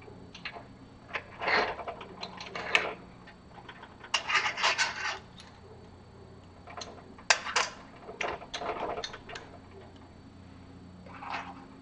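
Steel machine-skate parts and ball bearings being handled and fitted together by hand: irregular metal clicks and clinks with short scraping rubs, coming in several clusters.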